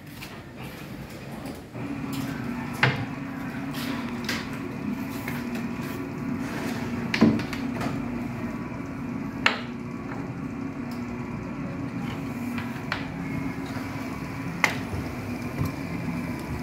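Portable edge banding machine running with a steady hum as a panel is pushed along it to apply edge tape. About five sharp knocks come through the hum.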